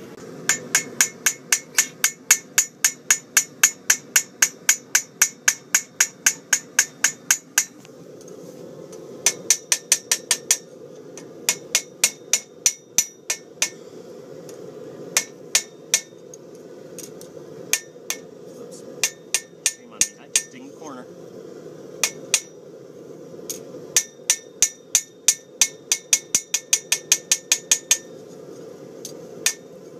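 Hand hammer striking a hot knife blade on an anvil, each blow ringing sharply: a fast, even run of about four blows a second for the first eight seconds, then shorter runs of blows with pauses between.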